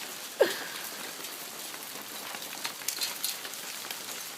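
Hail falling steadily, a dense patter of hailstones striking surfaces with scattered sharp ticks. A brief falling cry is heard about half a second in.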